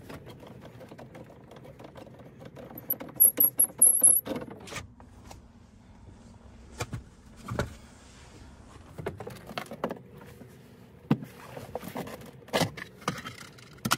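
Hand work on a pickup's centre-console shifter: a quick run of sharp clicks with a high metallic jingle a few seconds in as the shift knob is twisted and pulled off the gear lever, then scattered knocks and clicks from the console trim being handled.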